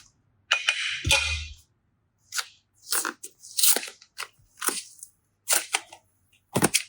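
Crinkly, crunching handling noise from slime and clay toys and their packaging: a brief rustle about half a second in, then a string of separate sharp crunches.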